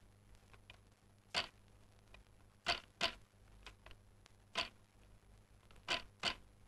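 Wooden hand loom knocking as it is worked: six sharp wooden clacks at uneven intervals, two of them in quick pairs about a third of a second apart.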